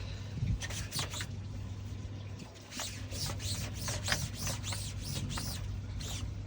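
A quick series of short, high squeaks and scrapes, with a couple of knocks earlier on, as a new screen is worked into place on a koi pond drum filter. A steady low hum runs underneath.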